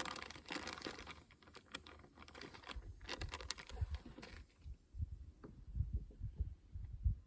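Plastic soft-bait packet crinkling and rustling with sharp little clicks as it is handled and opened, stopping about four and a half seconds in. After that come scattered dull low thumps.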